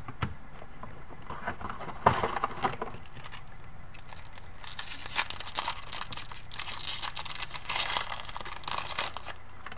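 Wrapper of a trading card pack being torn open and crinkled. There is a short rustle about two seconds in, then a longer stretch of dense crackling from about five seconds until near the end.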